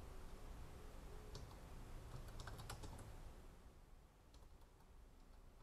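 Faint computer keyboard typing: a few scattered keystrokes, several close together in the middle, over a low steady hum.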